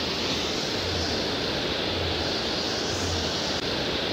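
Whitewater rapids in a concrete channel, rushing steadily.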